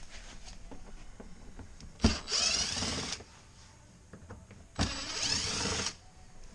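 Cordless driver with a T20 Torx bit running in two short bursts, about a second each, backing out Torx screws from a car's front bumper cover. Each burst starts with a click and then whirs steadily.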